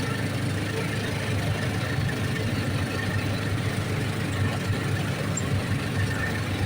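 Vehicle engine running steadily with a low drone while riding along.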